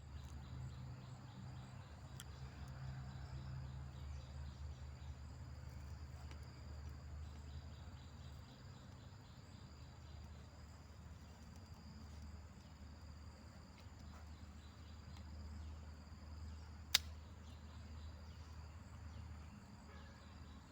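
Forest insects trilling steadily in high continuous tones over a low rumble, with one sharp click late on.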